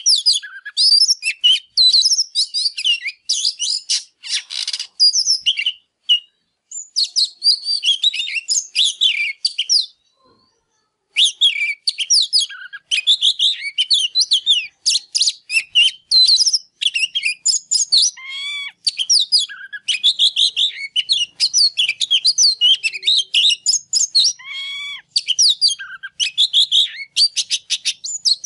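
Oriental magpie-robin singing a fast, varied song of whistled notes, trills and rapid chattering phrases, nearly without a break except for a short pause about ten seconds in.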